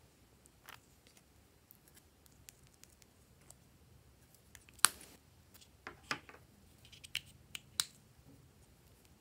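Scattered sharp clicks and taps from a small plastic flip-lid cosmetic container and a plastic spatula being handled; one loud click about five seconds in, then a run of smaller clicks.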